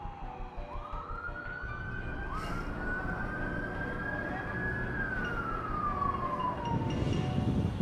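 Emergency vehicle siren in a slow wail. The pitch falls, climbs again just after the start, holds high for several seconds, then falls away near the end. A low rumble, like a vehicle going by, comes up in the last second.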